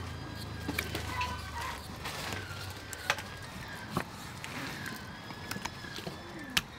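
Kitchen knife slicing raw beef on a round wooden chopping board, with a few sharp knocks as the blade meets the wood.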